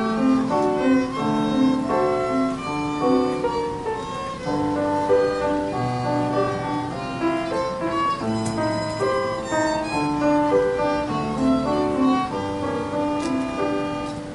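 Violin and piano duet: a child plays a melody on the violin in a run of separate notes, with grand piano accompaniment.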